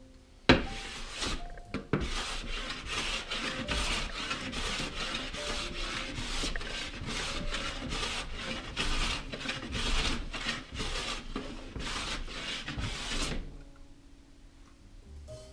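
Hand plane shaving a wooden board in quick, short strokes, about two a second, taking down a ridge in the middle of the board to flatten it. The strokes stop about two seconds before the end.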